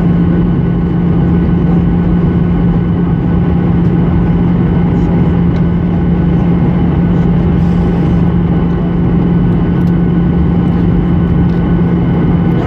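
Cabin noise of a Boeing 737 in flight, heard from a seat over the wing: the steady rushing drone of its CFM56 turbofan engines and the airflow, with a constant low hum running under it.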